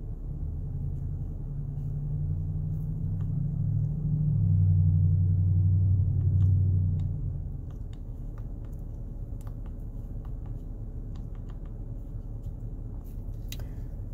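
Low droning hum in the cabin of an idling 2019 Honda Pilot (3.5 L V6). The hum swells over several seconds, is loudest about four to seven seconds in, then falls back to a steady idle hum. Faint scattered clicks are heard throughout.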